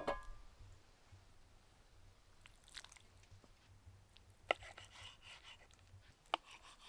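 Food being bitten and chewed with a crunch. A sharp click with a brief ring comes right at the start, then a few crunchy bites and chewing spread through the rest.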